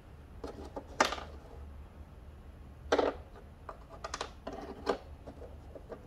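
Irregular metallic clicks and clacks of bicycle cassette cogs and spacers being handled and fitted, from a Shimano SLX 12-speed cassette. A sharp click comes about a second in and another at about three seconds, followed by a run of lighter clicks.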